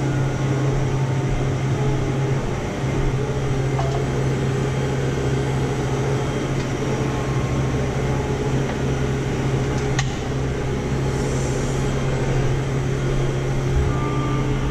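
Steady machine hum, even and unchanging, with a single faint click about ten seconds in.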